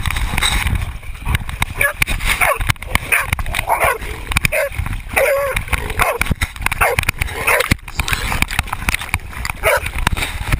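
Hunting dogs barking and yipping in a rapid run of short, repeated calls, over a low rumble.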